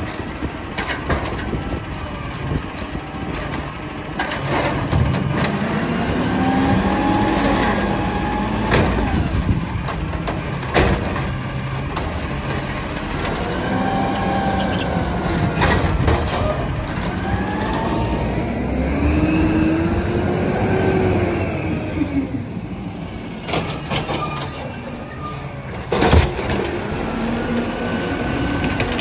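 Peterbilt 320 automated side-loading garbage truck working its hydraulic lift arm: the engine and hydraulics rise and fall in pitch in four swells as carts are lifted and emptied, with sharp knocks of carts banging against the arm and hopper.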